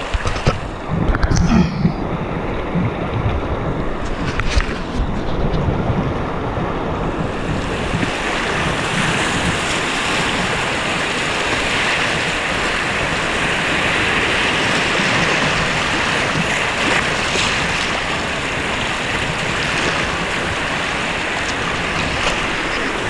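Rushing river rapids splashing around a kayak, with wind buffeting the microphone. A few thumps come in the first couple of seconds, and the water noise grows fuller and louder about a third of the way in as the kayak runs into whitewater.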